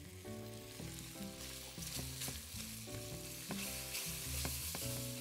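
Garlic and herbs sizzling gently in olive oil, at the stage where the garlic is just done, while a silicone spatula stirs and scrapes the pan with short soft clicks. Soft background music plays underneath.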